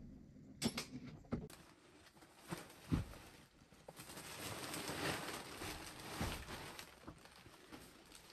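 Woven plastic sacks being handled and loaded into a van: a few sharp knocks early, a heavy low thump about three seconds in as a sack is set down, then steady rustling of the sacks with small knocks.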